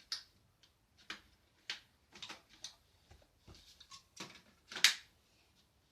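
Irregular plastic clicks and knocks as brush attachments on a Hoover H-Free 700 cordless stick vacuum are handled, pulled off and snapped on, with the loudest click about five seconds in.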